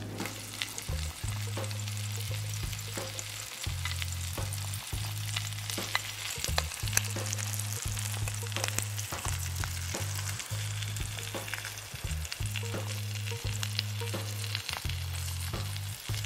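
Trout frying in butter in a pan over a backpacking stove: a steady sizzle full of small crackles and pops. Low background music sits underneath.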